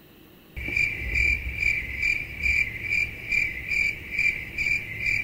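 Cricket chirping, a steady high chirp pulsing about twice a second. It starts abruptly about half a second in, the way an inserted 'crickets' sound effect does.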